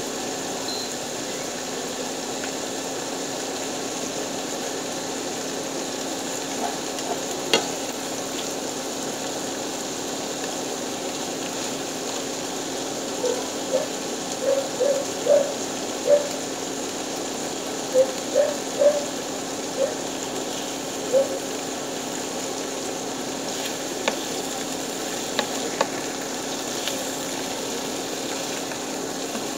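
Whole round scad (galunggong) sizzling steadily in a pan. A run of short pops comes in the middle, and a few sharp clicks come near the end.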